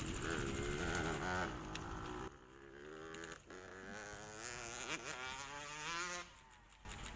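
Off-road motorcycle engine revving, its pitch wavering and sliding up and down for about four seconds, after a couple of seconds of rustling movement.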